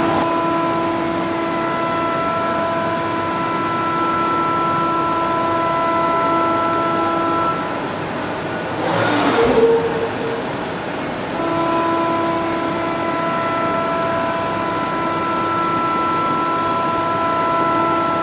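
The 20,000 rpm spindle of a Huron KX 50 CNC machining centre milling a metal block with an end mill, making a steady, high cutting whine of several stacked pitches. The whine breaks off about seven seconds in as the tool lifts clear. A brief rushing sound follows, and the cut resumes about eleven seconds in.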